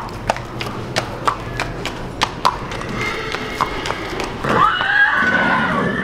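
A horse's hooves clip-clopping on a concrete barn aisle as it is led at a walk, about three steps a second. About four and a half seconds in, a horse whinnies, one long call that rises and then falls.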